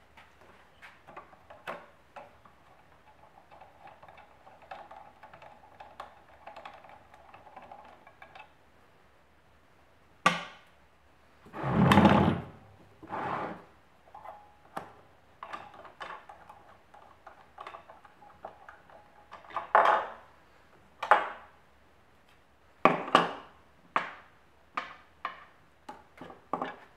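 Hands working on a Bosch POF 1400 ACE plunge router on a wooden workbench, taking screws out of its base: scattered light clicks and small metal knocks, with a louder thud about twelve seconds in. The router's motor is not running.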